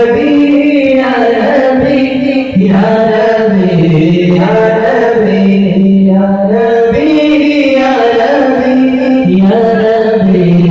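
A man chanting a devotional melody solo into a microphone over loudspeakers, without accompaniment, in long held notes that waver and slide between pitches.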